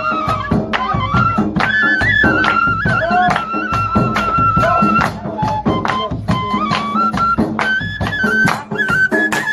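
Folk dance music: a dhol drum beating a steady rhythm under a bansuri flute melody that steps up and down in short held notes.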